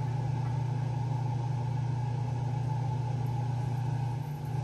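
A steady low hum that holds unchanged throughout.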